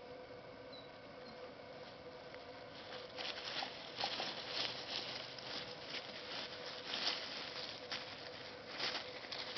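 Dry fallen leaves rustling and crunching under puppies playing in them, in irregular crackling bursts that grow busier about three seconds in.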